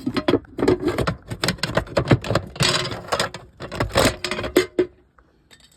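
Metal clicking, clattering and rattling as the outdoor air-conditioning unit's power disconnect and cover are handled, with a short scrape about two and a half seconds in; it stops about five seconds in.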